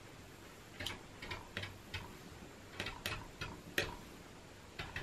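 Light, irregular clicks and taps, about a dozen of them, some in quick pairs, from small craft tools being handled.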